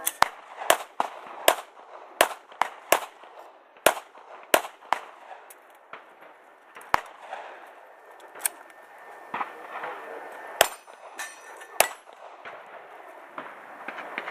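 Handgun shots fired on a live-fire range. A quick, uneven string of shots comes in the first five seconds, then single shots every second or two.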